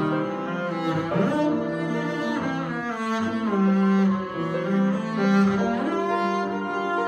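Double bass played with a bow: a slow solo line of sustained notes, some joined by slides in pitch.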